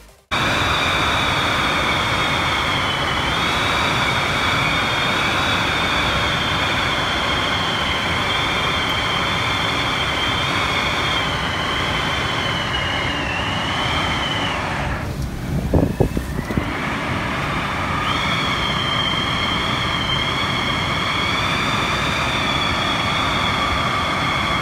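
Strong wind rushing over a phone's microphone on the open deck of a ship at sea, with a steady high whistle that wavers slightly in pitch. The whistle drops away for a few seconds in the middle, where a few brief knocks are heard, and then comes back.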